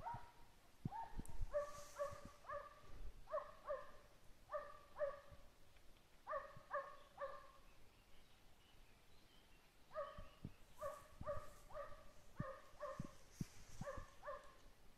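A hunting hound baying faintly while it trails a hare: a run of short, bell-like barks, often two or three close together, with a pause of a couple of seconds about halfway through.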